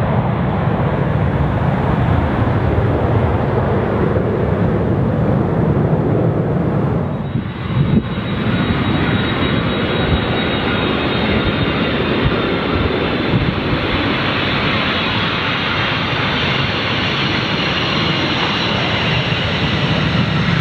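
Jet airliner engine noise: a loud, steady rush with a faint high whine that slowly rises in pitch in the second half. It dips briefly about seven seconds in.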